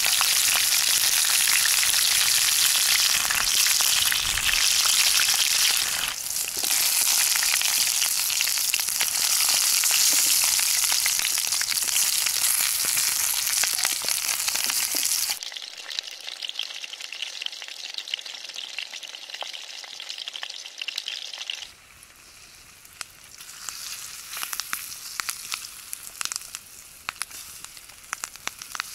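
Small whole, unpeeled new potatoes frying in a steel pan over a campfire: a loud, steady sizzle for about fifteen seconds, then a quieter sizzle with scattered crackles.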